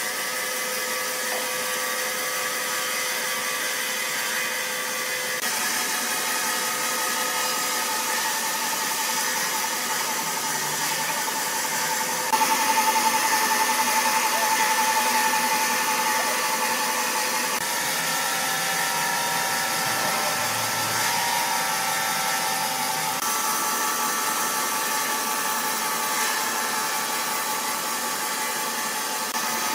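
Sawmill machinery running with a steady mechanical noise and a held high whine. The sound shifts abruptly several times and is loudest about twelve to sixteen seconds in.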